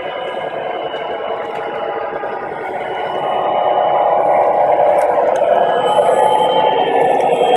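O gauge model Wheeling & Lake Erie GP35 diesel locomotives running under load up a grade, their onboard speakers playing a diesel engine rumble over the roll of the wheels on three-rail track. It grows louder about three seconds in as the locomotives come close.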